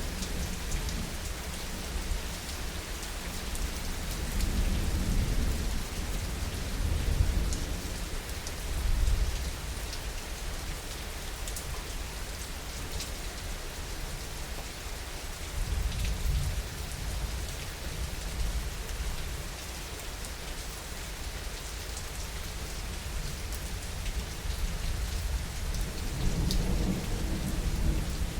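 Heavy rain falling steadily, with low rolling thunder that swells and fades several times, strongest about a third of the way in and again near the end.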